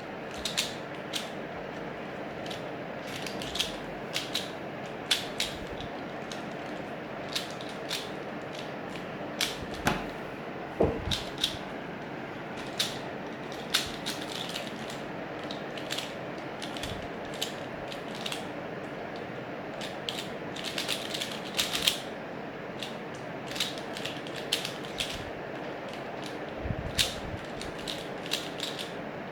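A 3×3 Rubik's cube being turned fast in a speed solve: irregular plastic clicks and clacks of the layers snapping round, sometimes several in a quick run.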